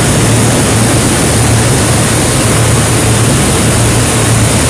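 Loud, steady industrial din of a steel plate shop: an even roar with a constant low hum underneath, with no distinct knocks or clangs.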